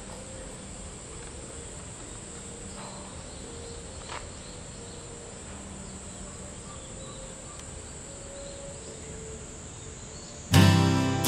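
Quiet outdoor ambience with a steady, high drone of insects. Strummed acoustic guitar music starts suddenly near the end and is the loudest sound.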